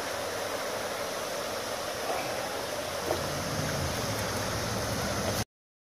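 Steady rush of creek water, with a couple of light splashes as hands let a fish go in the shallows at the bank. The sound cuts off abruptly near the end.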